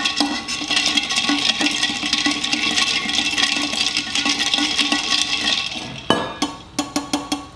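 Ice and Clamato stirred with a kitchen knife inside a stainless steel tumbler: a continuous rattling swish of ice against the metal, which stops about six seconds in and gives way to a few separate clinks as the knife is lifted out.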